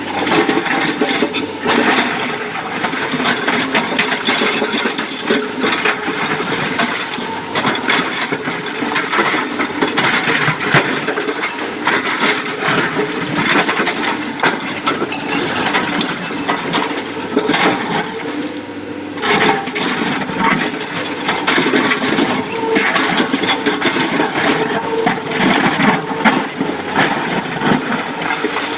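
Excavator engine running under load while rock and stone clatter and crash into a dump truck's steel bed, a dense, continuous rattle of impacts with a brief lull partway through.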